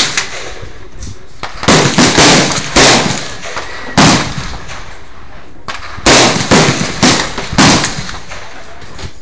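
Eight shots from a semi-automatic .308 rifle: a quick string of three about half a second apart, a single shot, then another rapid string of four. Each shot leaves a short fading tail.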